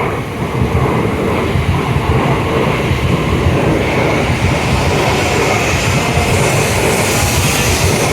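N700A-series Shinkansen train pulling out of the station and gathering speed close by, its running noise building up and growing brighter as it goes.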